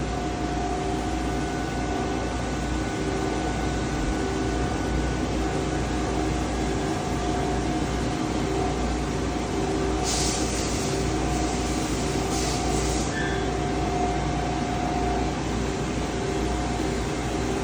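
Mighty Viper VT-22 CNC lathe running a cycle: a steady machine hum with a held whine. About ten seconds in, a few short hisses sound over about three seconds.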